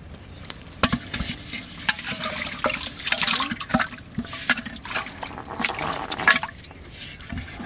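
Water splashing and sloshing inside an aluminium pot as a hand gropes after a live fish, with irregular sharp knocks and clatter; it dies down about six and a half seconds in.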